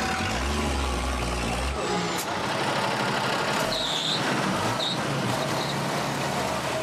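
Heavy truck engine running while the truck is bogged in deep mud, with two brief high squeals a little past the middle.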